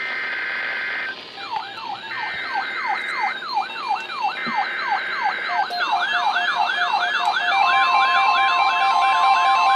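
Emergency Alert System audio: three short bursts of SAME header data tones, with layered electronic siren sweeps rising and falling a few times a second and growing faster and denser. About eight seconds in, a steady alert tone of about 1 kHz, like the NOAA Weather Radio 1050 Hz tone, joins the sirens.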